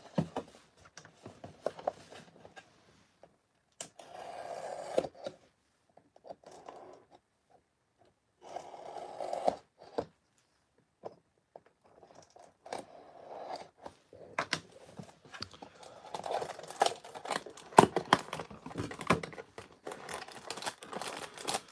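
Shrink-wrapped trading card packs and their cardboard hobby box being handled, with plastic wrap crinkling and tearing among light taps and clicks. There are two longer scraping sounds of about a second each, about four and eight seconds in. The crinkling and clicking grow busier in the last third.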